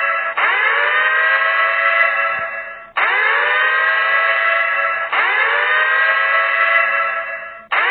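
Air-raid siren sounding in repeated blasts. Each blast rises quickly in pitch, holds a steady multi-tone wail, then drops away, with a new blast starting roughly every two and a half seconds, four times.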